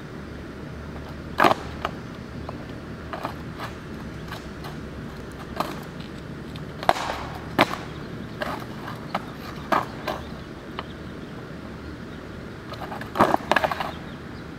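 Freestyle skateboard tricks on flat asphalt: a string of irregular sharp wooden clacks as the deck and tail hit the ground. Near the end comes a quick flurry of clattering as the board falls and lands upside down.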